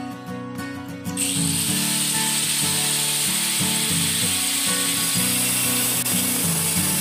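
Angle grinder with a thin cut-off disc starting up about a second in and cutting into a metal tube held in a vise: a steady high whine over a hiss of cutting noise.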